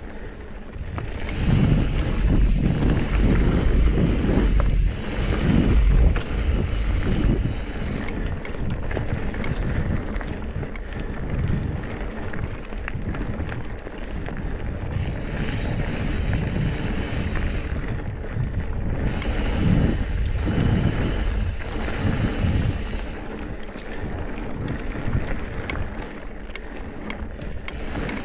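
Wind rushing over a mountain bike's action-camera microphone as the bike rides dirt singletrack, with the tyres rolling and the bike clicking and rattling over rough ground. The wind is loudest in the first few seconds and again about twenty seconds in.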